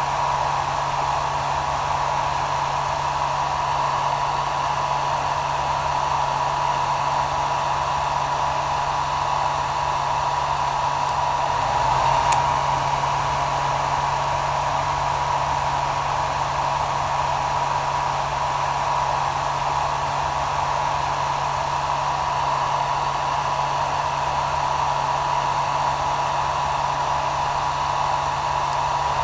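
Hair dryer running steadily: a continuous blowing hiss with a constant high whine and a low motor hum.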